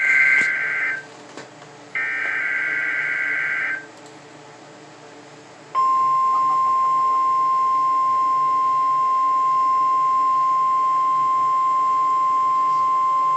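NOAA Weather Radio test broadcast through a weather radio receiver: two short bursts of SAME header data, a harsh two-tone digital warble, then about six seconds in the steady, high 1050 Hz weather radio warning alarm tone starts and holds. Faint radio hiss fills the gaps.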